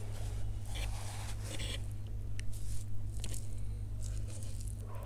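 Metal fork stirring and lifting saucy chow mein noodles on a wooden platter: a run of short, wet scrapes and squishes, close to the microphone, over a steady low hum.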